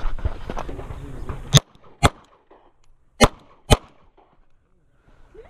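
Semi-automatic pistol fired four times in two quick pairs, the shots about half a second apart within each pair. The shots follow about a second and a half of rough noise.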